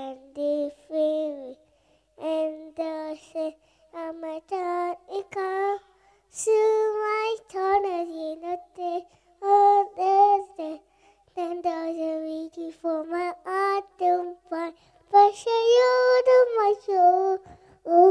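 A child singing solo without accompaniment, a high voice in short phrases with brief pauses between them.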